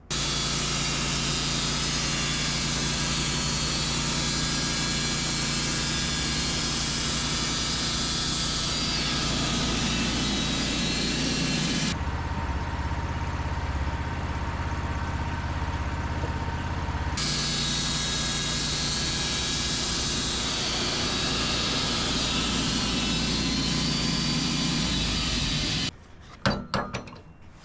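Wood-Mizer LT15 wide band sawmill running steadily, its band blade cutting lumber. Between about 12 and 17 seconds the sound turns deeper with less hiss, and near the end it cuts off suddenly.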